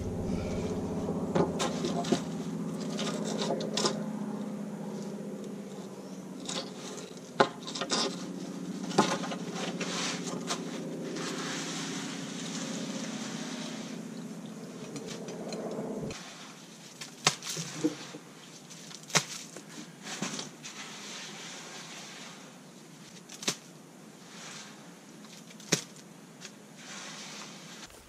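An electric concrete mixer hums steadily and stops abruptly about sixteen seconds in. Scattered scrapes and sharp knocks come from a wooden board being worked across wet concrete.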